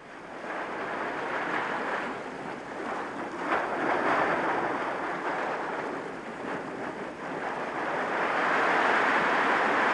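Sea surf washing over and around rocks, swelling and ebbing, louder near the end.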